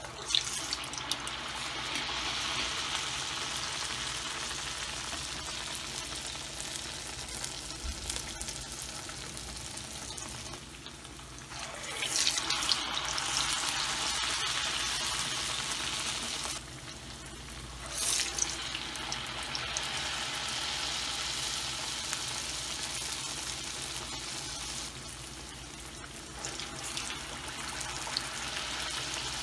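Urad dal batter fritters (dahi baray) deep-frying in hot oil in a wok, a steady loud sizzle. The sizzle bursts up abruptly about a second in, and again at about twelve and eighteen seconds, as each new ball of batter is dropped into the oil.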